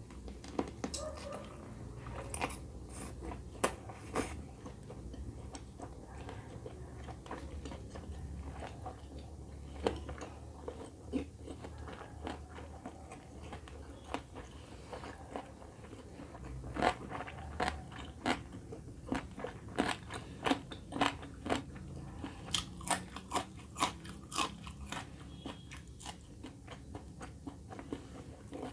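A person chewing and biting pieces of chicken curry eaten by hand, close to the microphone: wet mouth clicks and crunches, coming faster, about two a second, in the latter half.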